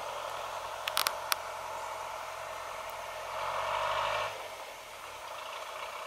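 Toyota Bandeirante's diesel engine running steadily as the jeep drives away at a distance, with three sharp clicks about a second in and a brief rise in the noise a little after three seconds.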